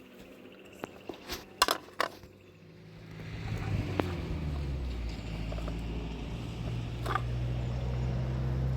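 A few sharp knocks, then from about three seconds in a motor engine starts to be heard as a low steady hum that grows louder and keeps running.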